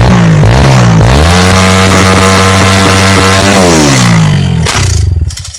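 Loud tuned drag-bike motorcycle engine being revved. It gives a few quick blips, then climbs to high revs and holds there for about two seconds before dropping back, and cuts off near the end.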